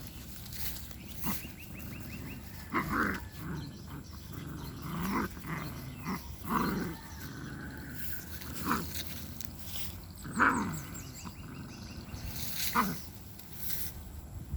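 A puppy giving a string of short growls and yelps, about seven separate calls a second or two apart, each bending up and down in pitch.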